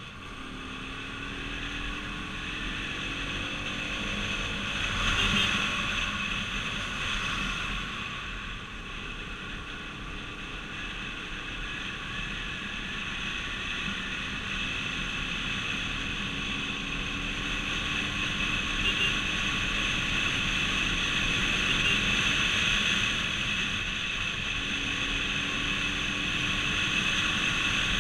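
A vehicle driving at highway speed: steady engine and road noise, the engine note gliding up and down with speed and growing louder overall.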